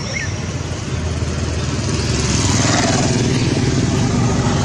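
A motor engine running steadily, its low drone growing louder over the first two seconds, then cutting off suddenly.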